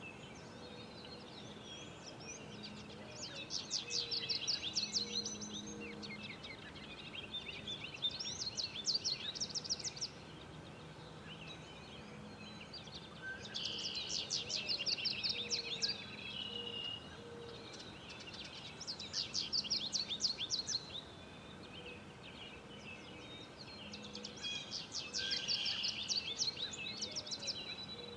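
A songbird singing the same short, rapid, high trilled phrase about every five seconds, five times in all, over a faint steady low hum.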